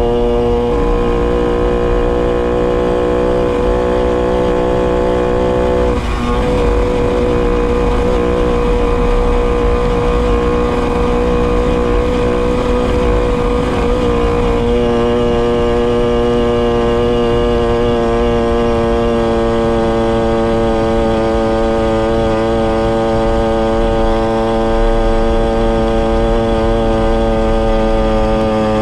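Tomos XL 45 moped's 49 cc two-stroke engine with a Tecno Bullet exhaust, running at a steady cruising speed on the road. The note holds an even pitch, wavers briefly twice, and eases off slightly near the end.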